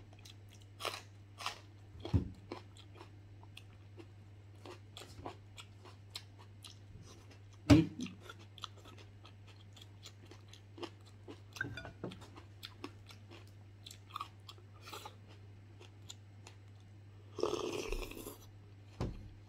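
Close-up wet chewing and crunching of a person eating stewed beef foot and a fresh green chili, with sharp clicks and a few louder bites. Near the end comes a loud slurp of soup drunk from a bowl. A steady low hum runs underneath.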